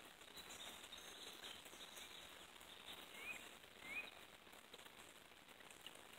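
Near silence with a faint steady hiss, broken by a bird's two short chirps about half a second apart a little after halfway.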